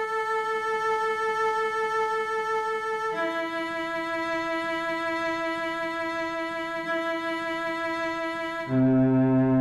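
Slow solo bowed string music with long held notes. The first note is held about three seconds and the next, lower note about five seconds. Near the end it drops to a deeper, louder note.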